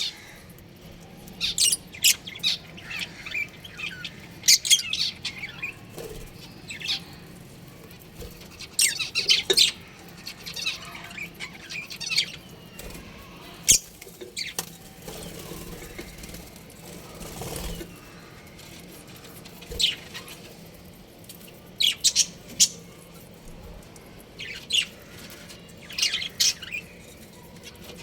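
Budgerigars chirping in short, high-pitched bursts of rapid chirps every few seconds.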